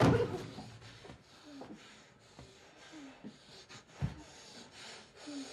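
Men grappling at close quarters: a loud thud at the start, then clothes and bodies rubbing and scuffling, with a few short strained grunts or breaths and a dull thump about four seconds in.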